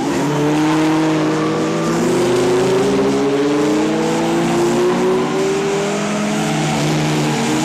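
Several winged stock car engines racing around an oval, their notes overlapping, with the loudest note climbing steadily in pitch as that car accelerates.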